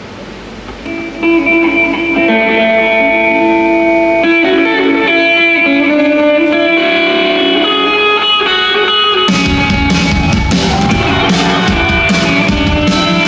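Live band music: a song's intro opens with a melody of held guitar-like notes about a second in, and at about nine seconds the full band comes in with drums and bass.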